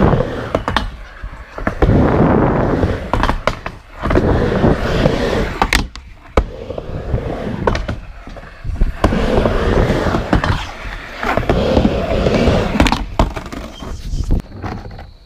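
Skateboard wheels rolling back and forth on a ramp. The rumble rises and falls in surges every couple of seconds, with a few sharp clacks of the board.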